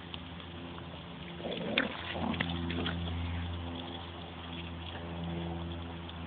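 Puppies growling and yapping in a short flurry while play-fighting, about a second and a half in, over a steady low hum.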